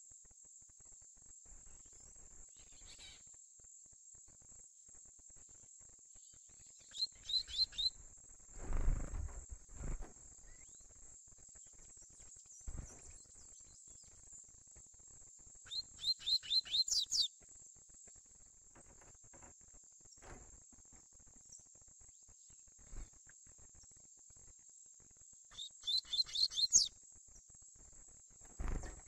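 Young double-collared seedeater (coleiro) singing three short tui-tui song phrases, about ten seconds apart, each a quick run of about six high notes, the last ones climbing higher, over a steady high insect drone. A low rumbling thud comes about nine seconds in, the loudest low sound, with a shorter one near the end.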